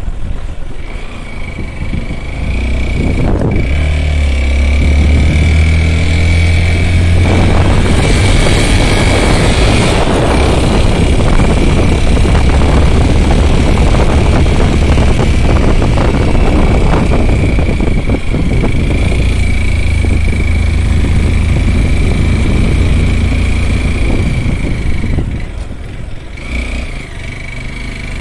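Motorcycle engine running as the bike rides along, with a low rumble and a rushing noise of moving air on the microphone. The sound grows louder about two seconds in, is strongest in the middle, and eases near the end; a thin steady whine runs throughout.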